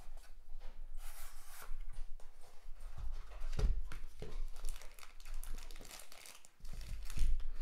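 Unboxing a small knife by hand: a paper sleeve sliding off a cardboard box, the box opened, and the knife in its plastic bag handled, giving irregular paper rustling, cardboard scraping and plastic crinkling. A sharper knock comes about three and a half seconds in.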